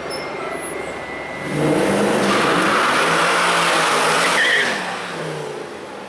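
Mercedes C63 AMG's V8 accelerating hard. The engine note swells about a second and a half in, climbs, then falls away about three seconds later. A loud hissing rush sits over it at its peak.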